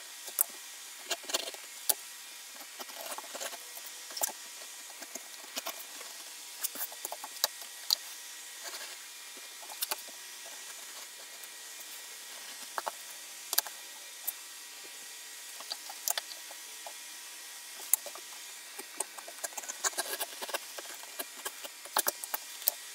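Edge beveler shaving the edges of veg-tan holster leather: short, irregular scraping strokes and small clicks, a few a second with pauses between runs.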